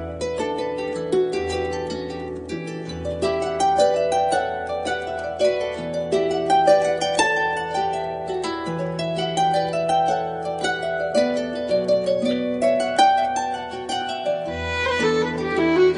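Background music: a harp playing a quick run of plucked notes over held low bass notes.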